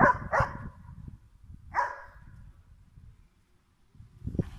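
Belgian Malinois barking in short barks: two in quick succession at the start, one more about two seconds in, and another near the end.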